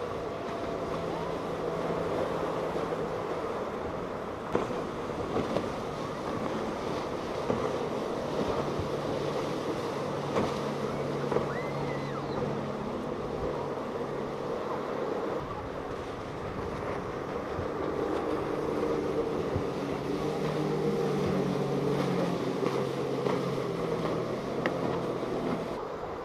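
Outboard engines on center console boats running fast past the jetty, a steady drone that swells and fades several times as boats go by one after another. Waves, wake wash and wind on the microphone run underneath.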